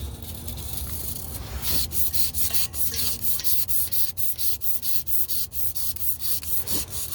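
Hand polishing of a 2005 Honda Civic's crankshaft journal with an abrasive: a rubbing, sanding sound that settles into quick back-and-forth strokes, about three a second, from a couple of seconds in. The journal is being smoothed of marks left by the rod knock.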